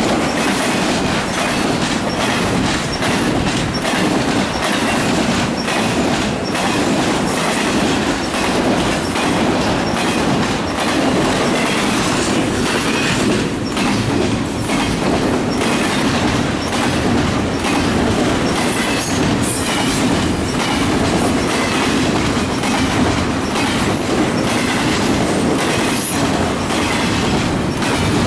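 Double-stack intermodal freight train passing at speed: steel wheels on rail make a steady loud rumble, with the well cars rattling and irregular clicks and knocks from the wheels.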